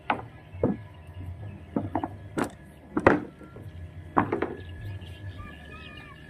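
Footsteps knocking on loose wooden planks of a riverside platform: a run of uneven knocks, the loudest about three seconds in.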